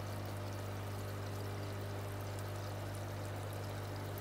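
Aquarium aeration: air from an airline bubbling up through a cup of filter media, a steady stream of gurgling and splashing water over a constant low hum.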